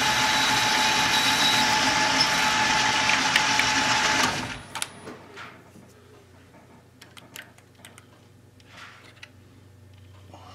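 Metal lathe running with a steady whine while the tool takes a light cut on a brass blank, then shut off so the sound stops abruptly about four seconds in. A few light clicks and taps follow.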